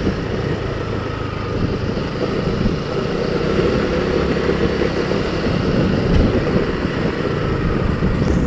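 Motorcycle engine running steadily, a continuous low drone with a faint whine above it.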